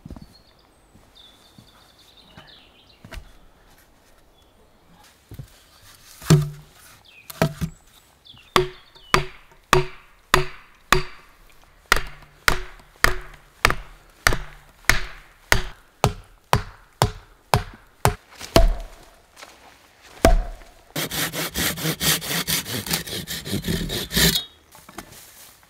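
Wooden stake being driven into the ground with a mallet: a steady run of sharp wooden knocks, about two a second, for some twelve seconds. Near the end a folding saw cuts a log for about three seconds with quick back-and-forth strokes.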